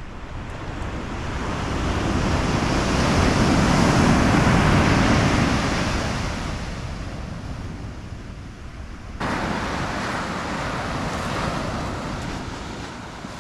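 Surf breaking and washing over a pebble beach, one long swell of noise that builds and fades over several seconds. About nine seconds in it cuts suddenly to steadier surf noise.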